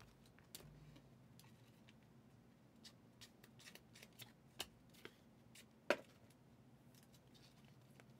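Faint flicks and clicks of Prizm football trading cards being thumbed one by one through a stack in the hands, with one sharper snap about six seconds in.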